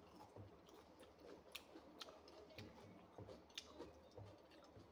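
Faint sounds of eating by hand: chewing, with a few soft clicks as fingers work rice and pork on a plate.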